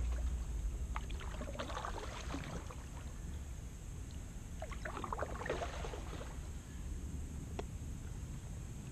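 Kayak paddle strokes: water splashing and dripping off the paddle blades in two bursts, about a second in and again about five seconds in, over a steady low rumble. A single sharp click comes near the end.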